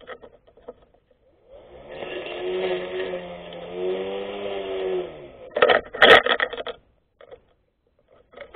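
24V brushless electric grass cutter's motor whining for about four seconds, its pitch wavering and then falling as it cuts out. A burst of sharp clattering knocks follows, the loudest about six seconds in.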